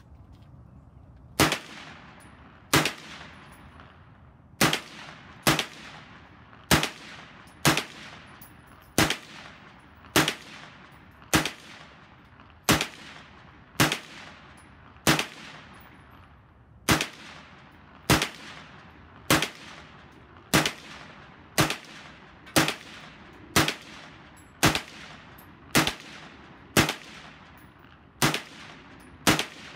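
Colt AR6951 9mm carbine firing steady, deliberate single shots of 115-grain full-metal-jacket 9mm, about one a second, around two dozen in all. Each sharp report is followed by a short ringing tail.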